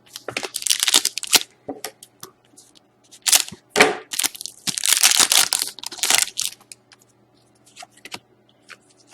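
Hockey trading cards and their plastic packaging being handled: crinkling and rustling in three bursts, with small sharp clicks.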